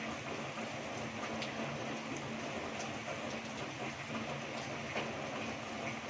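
Heavy rain falling steadily, a dense even hiss with scattered sharp drip ticks. A faint low hum runs underneath.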